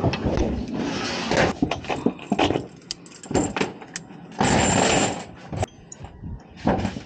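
Metal clinking and rattling as a solar panel is handled on a lifting chain over a corrugated metal roof, with scrapes and rustling and a louder rush of scraping noise a little past halfway.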